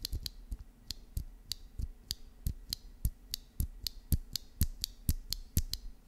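Typing on a Keychron Q2 mechanical keyboard fitted with factory-lubed Gateron G Pro red linear switches: a steady run of keystroke clacks, about four a second.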